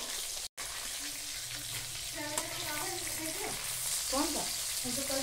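Pieces of fish frying in hot oil in a kadhai, a steady sizzle. The sound cuts out for an instant about half a second in.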